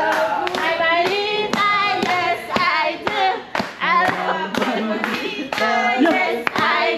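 Several voices singing together over a steady hand-clapping beat, about two claps a second.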